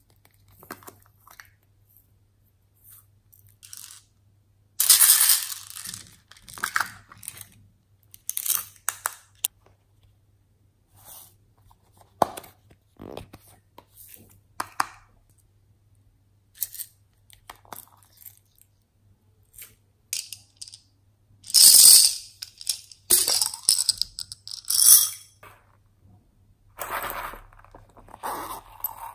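Small plastic containers being handled and opened, with beads and glitter poured out of them onto slime in a glass dish: scattered clicks, rattles and rustles in separate bursts, the loudest about five seconds in and again a little past twenty seconds.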